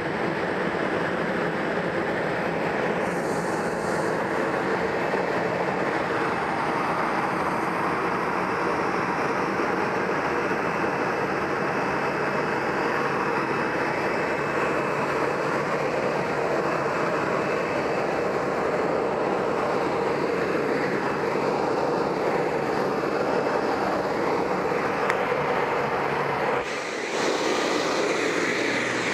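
Jet engines of a Boeing 737-700 (CFM56-7B turbofans) running at idle as the aircraft taxis in to park. A steady rushing noise with a thin, constant high whine.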